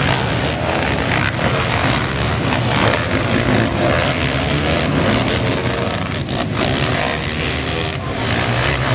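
Engines of several racing sport ATVs (quads) running together, loud and steady with no break.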